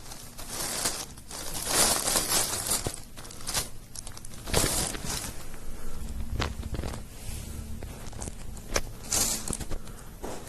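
Plastic bag crinkling and rustling in irregular bursts as a cat goes at it.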